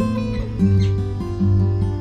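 Background music played on acoustic guitar, with notes changing every half second or so.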